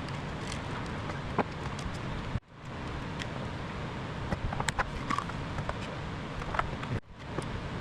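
Scattered light clicks and taps of small parts and hand tools being handled over a steady low rumble. The sound cuts out abruptly twice.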